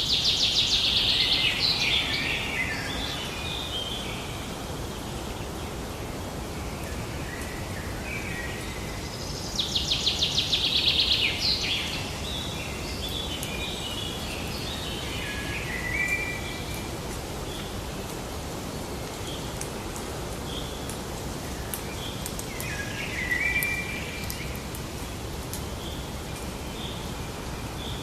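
Songbird singing over a steady outdoor background hiss. It gives a loud song that opens with a rapid trill near the start, repeats it about ten seconds in, and adds scattered short chirps and a shorter phrase later on.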